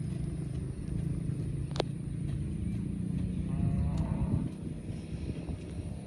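Cow mooing: one long, low moo that swells about three and a half seconds in and stops about a second later.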